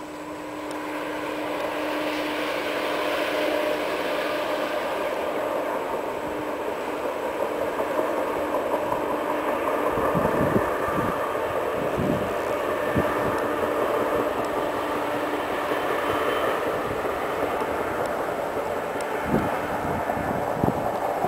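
Self-propelled railway maintenance-of-way machines of a track undercutter gang running on the rails, their engines and running gear growing louder over the first few seconds and then holding a steady rumbling hum. Gusts of wind buffet the microphone from about halfway.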